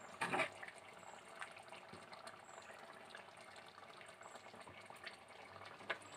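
A steel ladle scooping thick bitter gourd theeyal out of a clay pot and pouring it into a bowl: faint wet pouring and dripping, with a short knock of the ladle at the start and a small click near the end.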